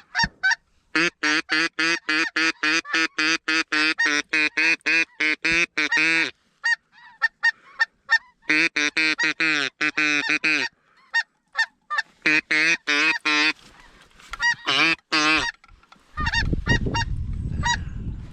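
Geese honking in fast runs of loud, evenly spaced calls, about four a second, with short breaks between runs. Near the end a low rushing noise comes in under the calls.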